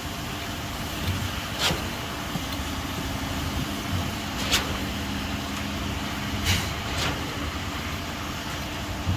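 A vehicle engine running steadily, with a low hum over it that stops about two-thirds of the way in. Four short, sharp knocks or scrapes stand out above it.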